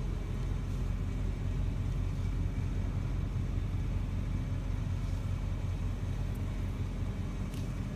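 A steady low rumble with a hum, with a couple of faint clicks near the end.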